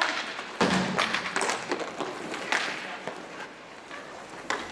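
Inline roller hockey play: a loud sharp clack of hockey stick and puck about half a second in, then several lighter clacks and the scraping of skate wheels on the plastic rink floor.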